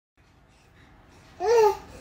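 A baby's short babbling coo, rising then falling in pitch, about one and a half seconds in, over faint room tone.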